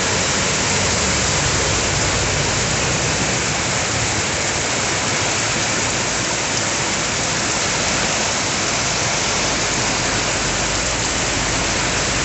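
Heavy rain pouring down steadily as an even, unbroken hiss, with no wind.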